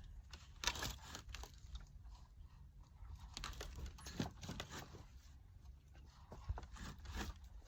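Irregular scraping, crunching and knocking of materials being shifted by hand, over a steady low rumble.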